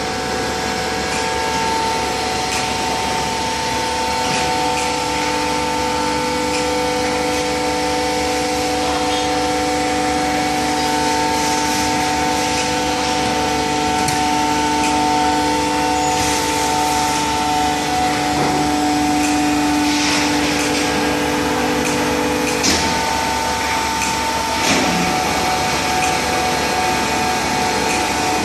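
Hydraulic baler running, its pump and motor giving a steady whine of several tones over a mechanical hum. The tones step to new pitches a few times as the load changes, and there are a couple of light knocks about three-quarters of the way through.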